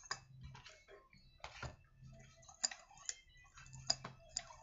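Light clicks and knocks of a partly dismantled chainsaw being handled and turned over on a workbench, scattered and irregular, with a few sharper clicks in the second half.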